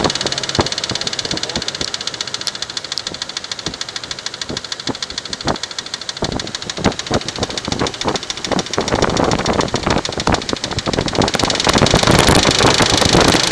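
1994 Infiniti Q45's 4.5-litre V8 engine running with a fast, even ticking from the top end, which the owner suspects is lifter noise. Sharper irregular clicks come through over the ticking, and the engine grows louder about nine seconds in.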